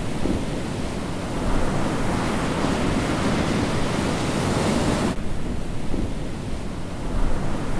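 Ocean surf breaking on a rocky shore. A hiss of breaking waves swells about a second and a half in, then cuts off suddenly just after five seconds, leaving a quieter, lower wash of surf.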